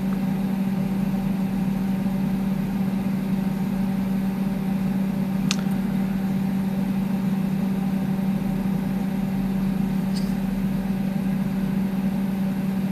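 A steady low hum with a ring of overtones, unchanging throughout, with two faint clicks, about five and ten seconds in.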